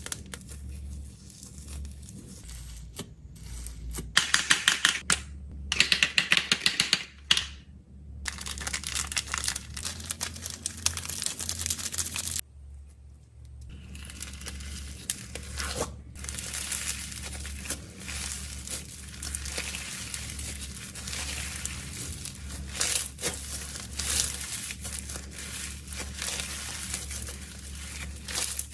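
Plastic snack wrappers and packaging being crinkled and torn open by hand, with a few seconds of rapid, loud rattling clicks about four seconds in and several abrupt cuts between takes.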